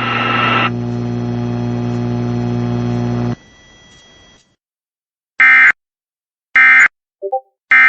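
A steady electrical buzzing hum that cuts off abruptly about three seconds in, followed by three short, identical, screechy data bursts about a second apart: the Emergency Alert System's end-of-message code, which closes the warning.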